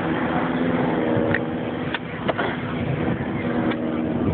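An engine running at a steady pitch, with a few sharp clicks over it.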